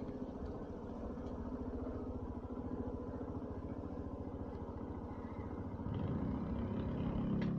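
An engine running steadily, with a rapid low pulsing, slightly louder near the end.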